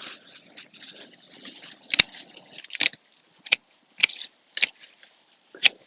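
Potato plant foliage rustling as it is handled and cleared, with six sharp clicks spread over the last four seconds; the loudest come about two seconds in and near the end.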